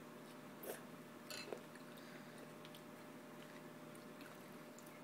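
Near-quiet room with a steady low hum, and a few faint small clicks and smacks about a second in from a small child eating pani puri with her fingers.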